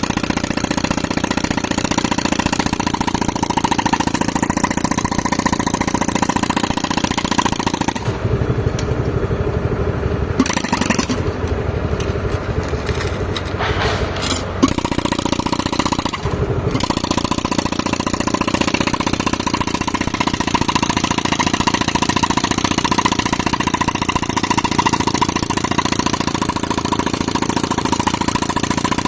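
Pneumatic rock breaker hammering, with the hiss of its air exhaust, over a tractor engine driving the air compressor. About eight seconds in, the hammer stops and only the engine runs for several seconds. Then the hammering resumes.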